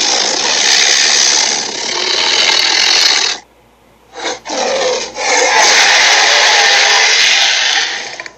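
Tyrannosaurus-style cartoon dinosaur roar sound effect: a harsh, rasping roar about three seconds long, a short pause broken by two brief growls, then a second long roar that fades out near the end.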